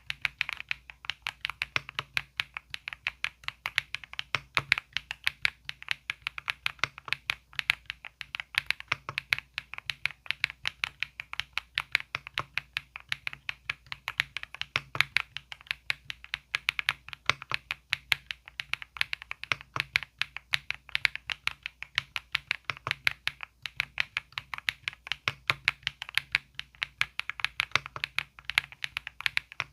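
Typing on an EPOMAKER Galaxy68 full-aluminium mechanical keyboard: a steady, unbroken run of keystrokes, several a second.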